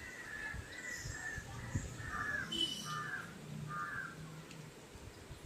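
Crows cawing, a run of short calls one after another that stops shortly before the end.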